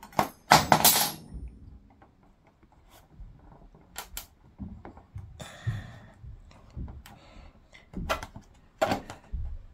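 Scattered sharp plastic clicks and snaps, with a short scrape about five seconds in: a pry tool being worked into the seam of a screwless TV back cover, its retaining clips snapping loose.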